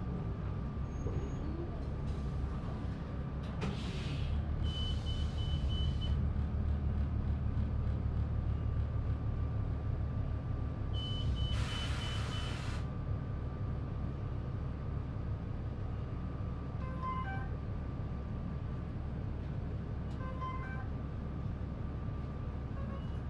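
A Cummins ISL diesel engine idling in a New Flyer D40LF transit bus. Several loud hisses of released compressed air come over it, with a high rapid beeping during the second and third.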